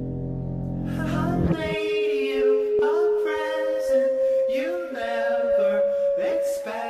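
Music: a low sustained drone that stops about a second and a half in, giving way to a voice singing long held notes that step up in pitch about three seconds in.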